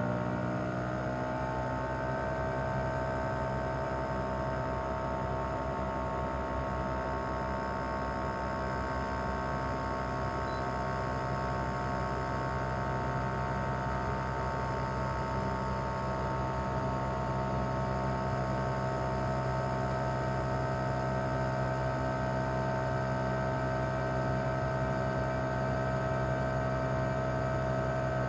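Mitsubishi Heavy Industries SRC2221T inverter air-conditioner outdoor unit running steadily in cooling mode: its single rotary compressor hums, with an inverter whine of several steady tones that settle in pitch within the first second.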